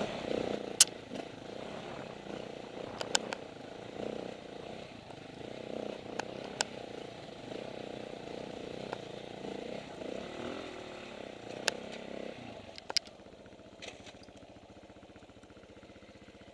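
Dirt bike engine running at low speed over a rocky trail, with occasional sharp knocks as the bike crosses rocks. About twelve seconds in, the engine falls to a quieter, steady idle.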